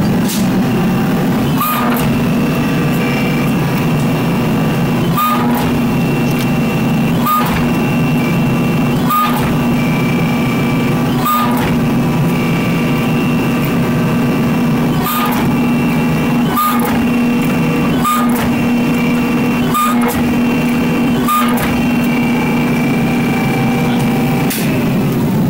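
Hydraulic forging press running steadily under load as a hot Damascus steel billet is squeezed between its dies, a constant pump hum with a higher steady whine over it. A short sharp knock or valve click comes every second or two as the operator works the lever to cycle the ram.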